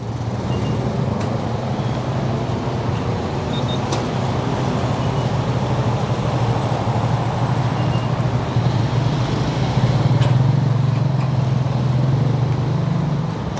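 Small motorcycle engine running with a steady low hum, with surrounding traffic noise; a few faint short beeps are heard in the first half.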